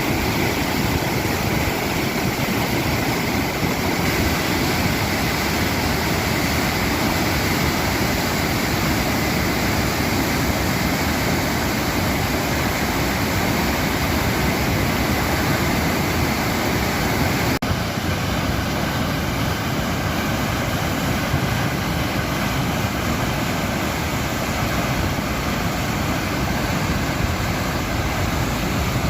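Water from the overflowing reservoir rushing in a steady, loud rush, with an abrupt change in tone about two-thirds of the way through.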